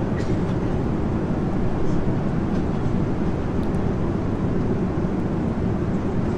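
Steady, low-pitched cabin noise inside a Boeing 777 airliner, with a few faint crinkles of plastic wrapping being handled.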